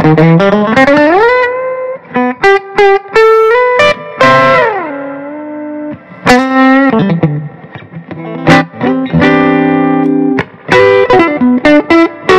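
Electric Telecaster-style guitar played loud through a Fender '63 Vibroverb reissue amp fitted with Eminence Cannabis Rex 10-inch speakers. It plays single-note lead lines with sliding and bending pitches, broken by short pauses and quick short notes.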